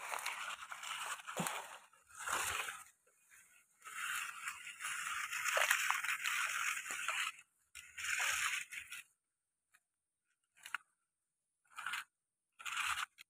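Irregular rustling and crunching as someone walks through leaf litter and garden plants, coming in uneven stretches with near-silent gaps between, longest about four seconds in and then in short bursts near the end.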